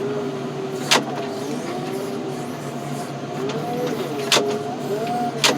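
Heavy machine's engine running steadily under load while it chops at a small tree, with a whine that rises and falls in pitch. Three sharp cracks come through, one about a second in and two near the end.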